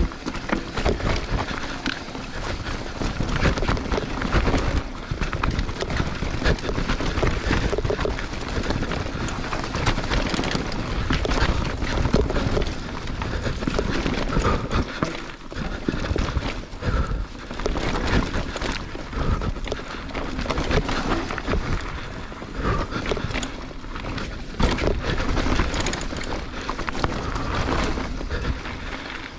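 Mountain bike ridden fast over a rough dirt trail: tyres rolling over leaves, roots and stones with a constant irregular clatter and rattle from the bike over bumps, and a low rumble of wind on the camera's microphone.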